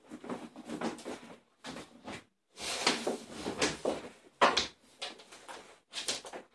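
A Neapolitan mastiff and another dog play-wrestling on a wooden floor: irregular scuffles, bumps and mouthing noises in short bursts, with one sharper, louder sound about four and a half seconds in.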